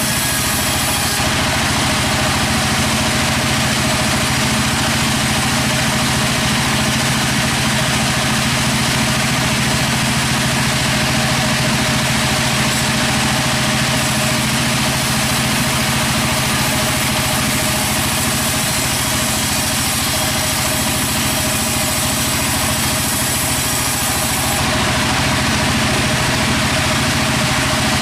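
Sawmill machinery running with a steady, unbroken engine-like drone.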